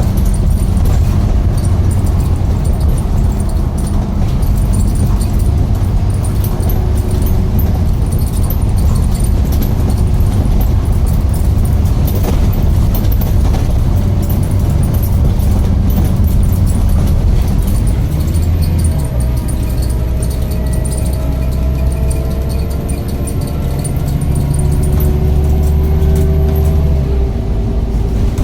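A road vehicle's engine running with a steady low rumble; about two-thirds of the way through its tone shifts and faint rising whines appear, as with a change of engine speed.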